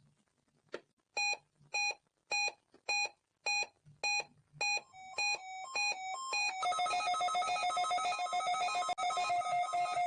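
Electronic alarm beeps: about seven short buzzy beeps at a steady pace, then alternating higher and lower beeps that quicken. About six and a half seconds in, they run together into a continuous fast warbling trill.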